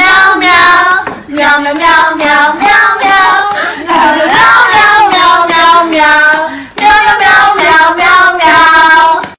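A child's high voice singing a birthday song, in loud sung phrases with short breaks between them.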